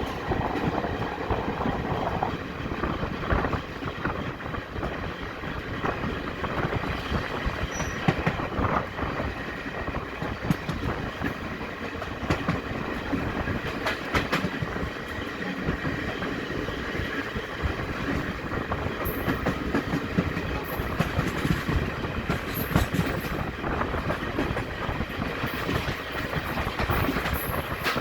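Express train coaches running along the track, wheels clicking over the rail joints in a steady clickety-clack, with brief high-pitched squeaks in the second half.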